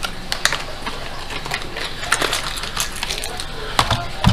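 Plastic lure packaging being handled and opened, with irregular crinkles and clicks and a dull thump near the end.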